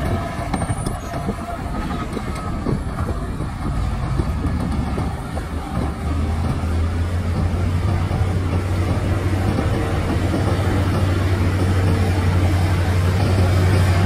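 Heavy diesel engines of a Shantui DH17 crawler bulldozer and a Shacman dump truck running together: a steady, deep drone with a dense rattle. It eases about a second in and builds back up from about six seconds on.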